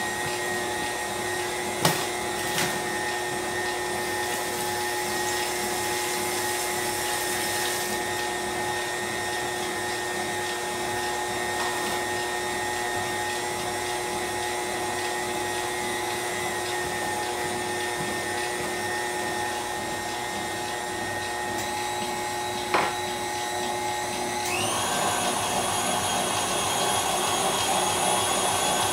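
KitchenAid stand mixer running steadily while beating a double batch of pound cake batter. About three-quarters of the way through, its pitch steps up and it gets a little louder as it speeds up. Two sharp clicks cut in, one near the start and one just before the speed change.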